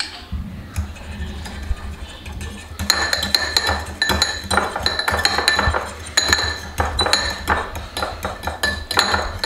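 A metal fork stirring cocktail sauce in a small glazed ceramic bowl, clinking quickly and repeatedly against the bowl with a ringing tone; the clinking starts about three seconds in. A steady low hum runs underneath.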